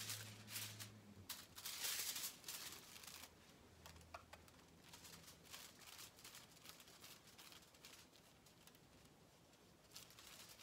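Aluminium highlighting foil crinkling and rustling as it is handled, in a run of short rustles over the first three seconds or so, then much fainter.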